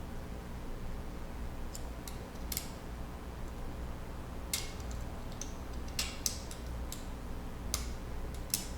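Irregular small metallic clicks and taps, about eight over several seconds, as Telecaster bridge saddles and their intonation screws are handled and pulled out.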